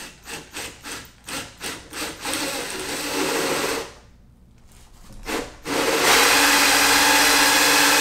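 Ryobi cordless drill driving a 1-inch Milwaukee bi-metal hole saw into the edge of a door: short trigger pulses about three a second to start the cut, then about two seconds of steady cutting. After a brief pause, the drill runs hard and steady through the rest, with a humming motor pitch over the cutting noise.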